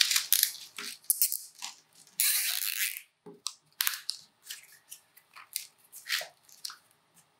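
A nylon zip tie being threaded and pulled tight around a bundle of dry Phragmites reed tubes. There is one long ratcheting zip a little over two seconds in, with scattered short clicks and rustles of the tie and reeds before and after.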